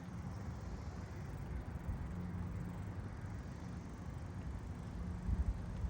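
Low, steady engine hum over a rumble, as of construction machinery running, with a few heavier low rumbles about five seconds in.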